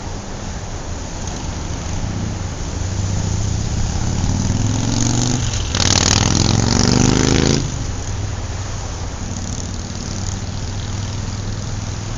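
A gasser car's engine running, rising in pitch from about four seconds in into a loud rev or acceleration lasting about two seconds, then dropping back to a steady run.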